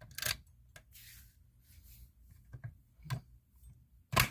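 Handling noises: a few scattered light clicks and knocks, a brief rustle about a second in, and a louder sharp click near the end.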